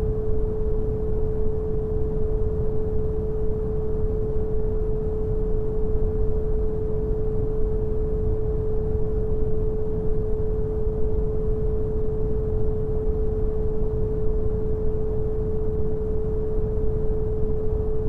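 Generated brown noise, a steady low hiss that is heaviest in the bass. A single pure 432 Hz tone is held unchanging over it.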